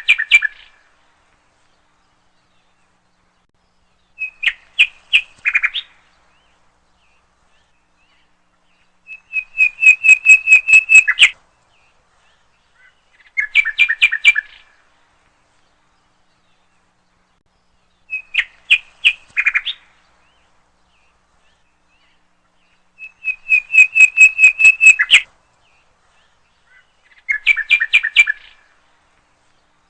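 A songbird singing in short phrases of quick repeated notes, each phrase one to two seconds long, with a few seconds of silence between them; seven phrases in all.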